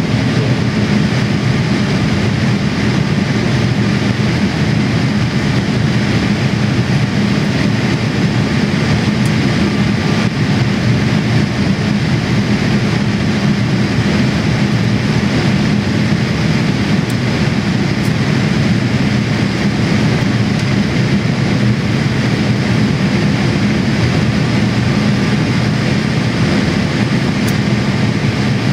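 Inside the passenger cabin of a Boeing 787-8 in flight: the steady low drone of its Rolls-Royce Trent 1000 engines mixed with the rush of air past the fuselage, even and unchanging.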